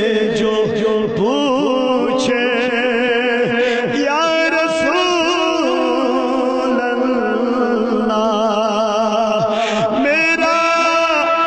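A man's voice chanting a naat, drawing out long wavering notes with no clear words, with a new phrase starting about ten seconds in.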